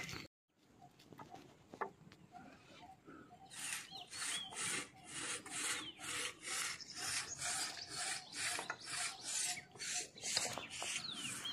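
Hand saw cutting through a felled tree trunk: a steady back-and-forth rasp of about two to three strokes a second, starting a few seconds in.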